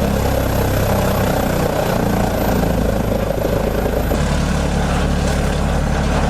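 Heavy engine of a Woodsman 440 whole-tree chipper running steadily under power, with a low drone. Its note changes about four seconds in.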